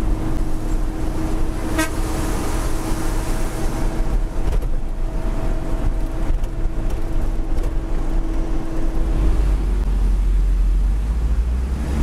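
Isuzu Giga FVZ truck's diesel engine and road noise heard from inside the cab while driving, a steady low rumble. A steady droning tone runs over it and stops about nine seconds in, and there is a single sharp click about two seconds in.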